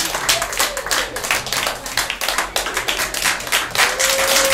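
A small audience clapping after a song, many hands at an uneven rate. A long held tone comes in near the end.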